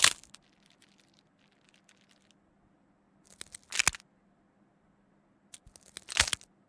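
Three short crunching, cracking sound effects, gross crack-and-crunch samples: one at the start, one about four seconds in, one near the end, each a quick cluster of sharp cracks with quiet between.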